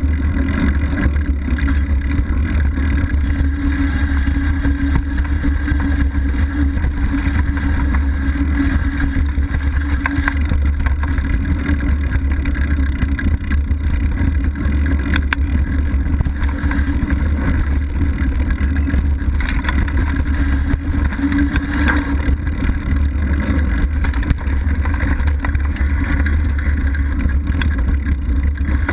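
Mountain bike rolling over leaf-covered dirt singletrack, heard through a handlebar-mounted camera: a steady low rumble of wind buffeting the microphone and tyres on the trail, with a few sharp knocks and rattles from the bike over bumps.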